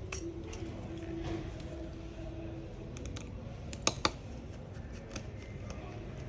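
Small metal repair tools clicking lightly against an iPhone 7 Plus as the tiny screws holding its motherboard are removed. Two sharper clicks about four seconds in are the loudest, over a steady low background hum.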